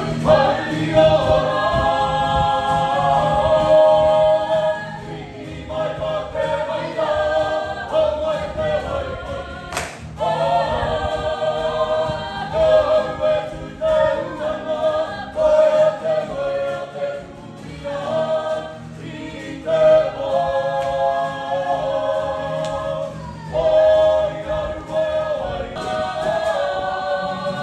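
Several voices singing together in harmony, choir-style, in held phrases with short breaks between them.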